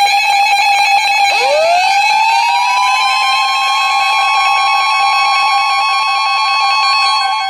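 Weather radio emergency alert tones: a loud steady tone, joined about a second in by a second tone that glides up quickly and then holds steady alongside it.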